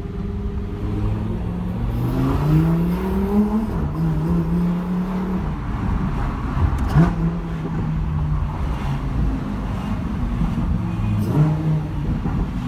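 V10 supercar engine pulling up through the revs, its pitch rising for about a second and a half. It then runs at a steady pitch with a few short drops and steps, like gear changes, and a sharp pop about seven seconds in.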